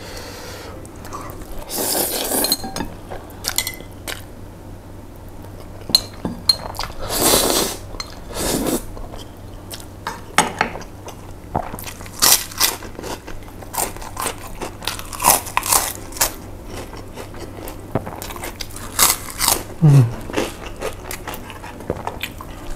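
Mukbang eating sounds picked up close on a clip-on mic: noodles slurped in two longer sucks in the first half, then a run of sharp crunches as crisp fried crackers are bitten and chewed, with chopsticks clicking on a ceramic bowl.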